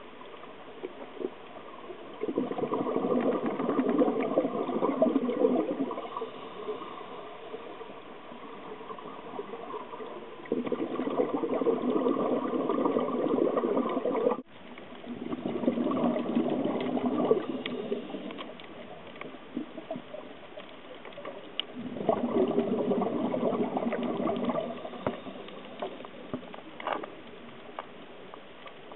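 Scuba diver's exhaled bubbles rushing from the regulator underwater, in four bursts of three to four seconds each, with quieter stretches between breaths.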